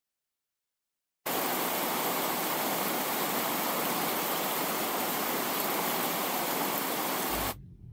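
Steady, even hiss of static-like noise that starts abruptly about a second in and cuts off sharply near the end: an intro sound effect under the animated channel logo.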